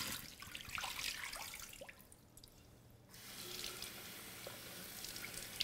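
Water splashing out of a tipped glass jar into a kitchen sink, then, about three seconds in, a kitchen faucet starts running steadily into the jar to rinse soaked alfalfa seeds.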